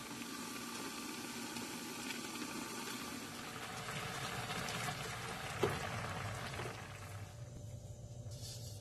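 Noodle soup broth boiling hard in a wide pan, bubbling steadily, with one sharp knock a little past halfway. The bubbling drops away near the end.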